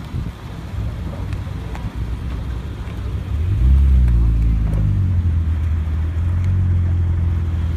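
A lowered Audi Sportback pulling away slowly past the listener: a low engine and exhaust note that swells about three seconds in with a short rise in pitch, then settles into a steady low drone.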